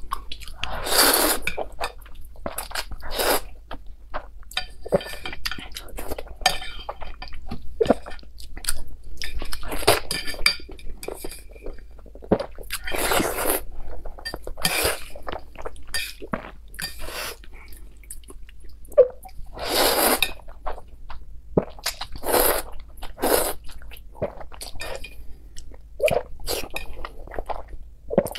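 Close-up mouth sounds of eating spicy instant noodles: repeated slurps, each a noisy burst about a second long, with wet chewing between them and chopsticks clicking against a ceramic plate.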